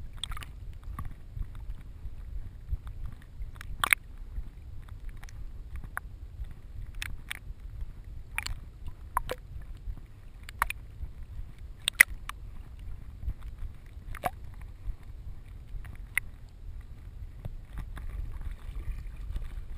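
A retriever swimming with a camera strapped to its vest: a steady, muffled low rumble of water against the body-mounted camera, with sharp slaps of water every second or two. Near the end the hiss grows as the dog reaches the shallows.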